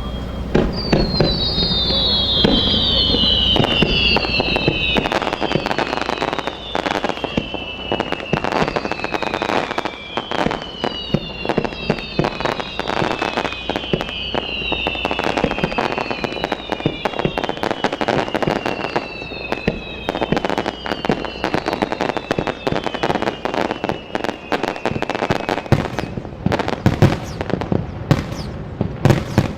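Fireworks display: dense crackling and popping of bursting shells, overlaid by a string of whistles that each fall in pitch, one every second or two. Near the end the whistles stop and a run of heavier, separate bangs takes over.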